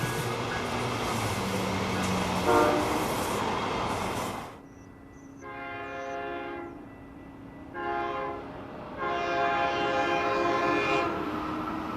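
A passing train's rolling noise, then after an abrupt cut, a train horn sounding three blasts, the last the longest, over a steady low hum.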